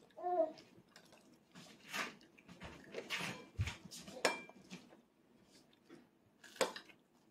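A brief small hum from a toddler, then scattered clinks and taps of cutlery against dishes at a meal table, one with a short ring, and a dull bump partway through.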